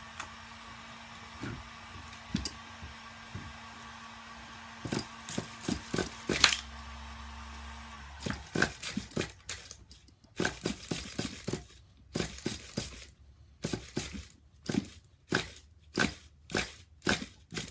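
A steady hum that stops abruptly about eight seconds in, then the pull start of a nitro RC engine yanked again and again, about twice a second, without the engine catching. The owner blames the starter's one-way bearing.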